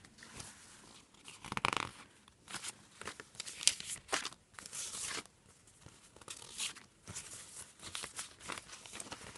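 Paper sticker sheets rustling as they are leafed through and shuffled by hand, in a string of short, irregular swishes.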